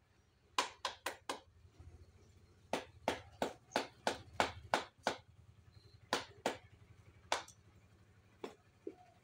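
Hand hammer knocking on a wooden block held against the cylinder head of a Mitsubishi Minicab engine being stripped down. About seventeen sharp knocks come in irregular runs of two to eight, with short pauses between the runs.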